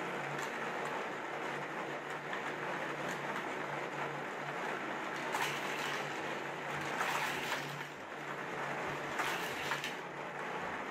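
Battery-powered motor of a Hot Wheels Spin Storm track set running with a steady whir, while die-cast toy cars clatter along the plastic track in three short bursts about five, seven and nine seconds in.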